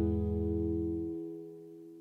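Background music: sustained guitar-like chords fading out, the bass dropping away about a second in.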